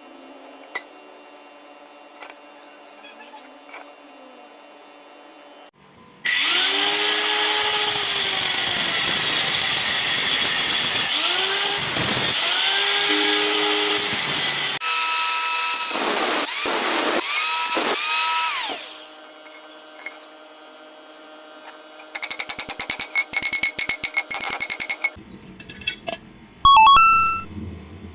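A handheld power tool runs loud for about thirteen seconds, its pitch sagging and recovering several times as it is pressed against the work. Later comes a few seconds of fast crackling clicks.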